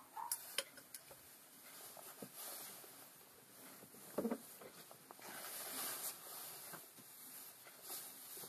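Faint workshop handling noises: a few light clicks near the start and a single dull knock about four seconds in, with cloth rustling close to the microphone a little after.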